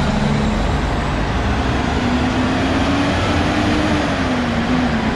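Hino 500 truck's diesel engine running at low speed as the truck creeps along, its note rising a little about two seconds in and easing back about four seconds in, over steady engine rumble.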